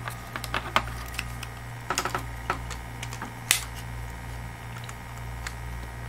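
Scattered light clicks and taps of clear acrylic case panels being handled and fitted around an Orange Pi PC board, the sharpest about three and a half seconds in, over a steady low hum.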